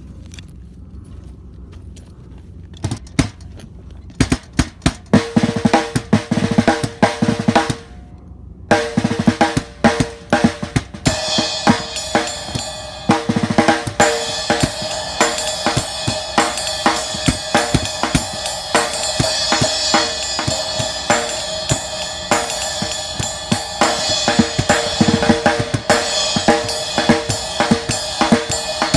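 A cocktail drum built from a 1960s 14-inch floor tom, with an Evans hydraulic red head on the bass side and a Remo Coated Diplomat on the snare side. After about three quiet seconds it is struck in single bass and snare hits with a ringing tone. After a short pause it is played as a steady groove, with a cymbal joining about eleven seconds in.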